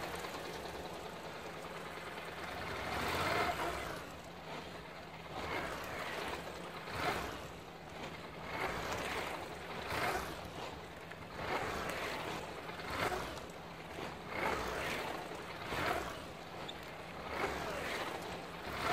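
Motorcycle engine running as the bike rides tight figure-eight turns around pylons. The sound swells and fades about every second and a half.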